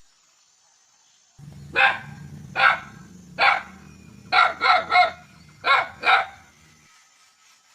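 A dog barking, eight short barks in small irregular groups over a faint steady background.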